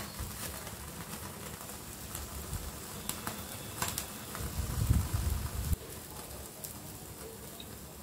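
Chicken pieces charring in a wire grill basket directly over a gas stove flame: a steady low rumble of the burning flame with scattered crackles and pops from the meat. The rumble swells louder for about a second around five seconds in.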